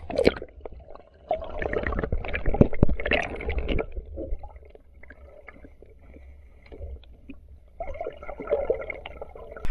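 Muffled underwater sound from a camera in a waterproof case: water gurgling, with irregular knocks and bumps against the housing. Quieter in the middle, busier again near the end.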